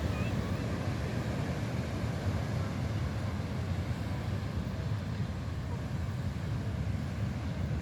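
Steady wash of heavy ocean surf, an even noise with no distinct strokes.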